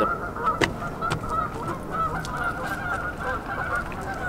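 A flock of geese honking, many short calls overlapping without a break.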